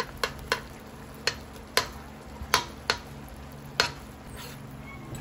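A large metal spoon stirring black bean paste into beef and vegetables in a stainless steel stockpot, clinking sharply against the pot about seven times at uneven intervals. A steady low cooking sizzle runs underneath.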